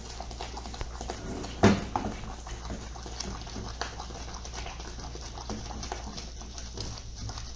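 A silicone spatula stirs thick, boiling brigadeiro of condensed milk and jabuticaba jam in an aluminium pan, with soft scrapes and small bubbles popping; the mixture is nearly at the brigadeiro stage and close to spattering. One much louder sharp knock comes about a second and a half in.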